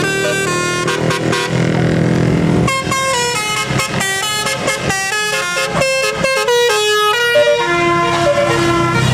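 Tour bus's multi-note telolet (Basuri) horn playing a melody, quick short notes through the middle and longer held notes near the end, over the bus engine running.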